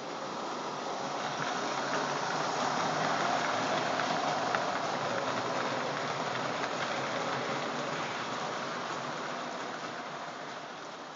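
Lionel O gauge model trains running on three-rail tubular track: a steady rolling rumble and clatter of wheels that swells as the cars pass close by and fades as they move away, with a few faint clicks from the rail joints.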